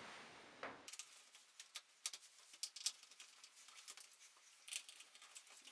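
Faint, irregular small clicks and scrapes of screws being turned out of a Triton T80Z electric shower's heating tank.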